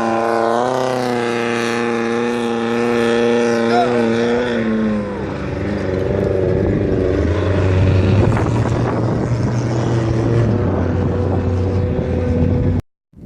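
Off-road race vehicle engine running hard at high revs, holding a steady note with small wobbles in pitch. About five seconds in the note drops lower and carries on. The sound cuts off suddenly near the end.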